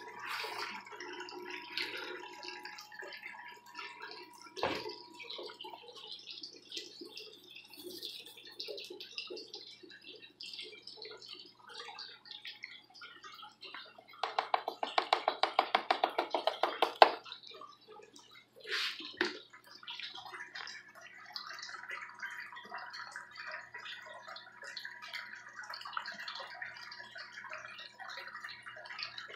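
Water running and trickling down a plastic rain-gutter sluice box over ribbed matting, with a steady low hum underneath. About midway there are a couple of seconds of rapid scraping as a spoonful of fine sand is fed into the head of the sluice, ending in one sharp knock.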